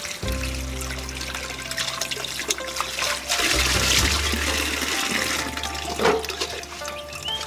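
Water running from a tank tap and splashing as berries are rinsed by hand, loudest a little past halfway, with a short splash near the end. Background music with long held notes plays underneath.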